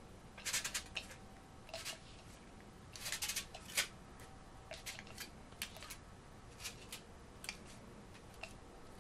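Aluminium foil crinkling in short, irregular crackles as it is pressed and twisted down over a packed shisha bowl, busiest in the first half and sparser later.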